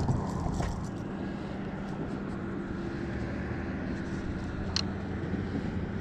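Steady low mechanical hum over a light rushing noise, with one short sharp click near the end.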